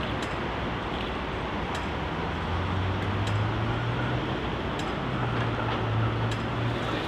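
Melbourne A2 class tram approaching slowly, with a low motor hum that comes in about two and a half seconds in over steady street noise. A pedestrian crossing push-button locator ticks about every second and a half.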